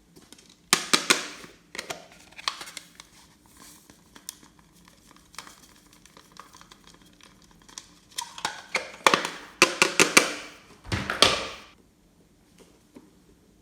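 Hands squishing and working glossy slime, giving crackly, crinkly clicking noises in bursts: a cluster about a second in and a longer run from about eight to twelve seconds.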